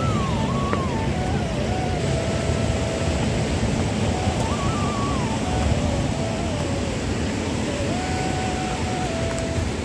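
Mountain river rapids rushing, a steady dense roar of whitewater. A thin, wandering single-note tune drifts faintly above it, stepping and sliding in pitch.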